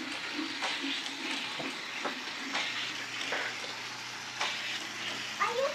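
Battery-powered toy trains and cars running on plastic track: a steady rattling hiss with scattered clicks.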